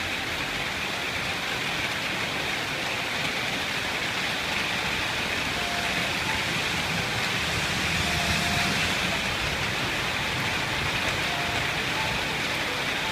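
Light rain falling steadily, an even hiss.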